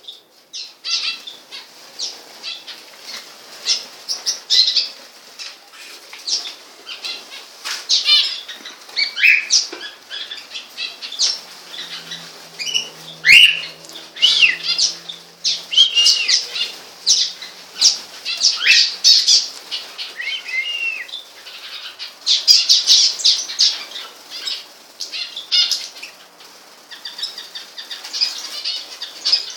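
Pet birds making many short, quick chirps and calls, mixed with wing flutters, in an irregular busy stream.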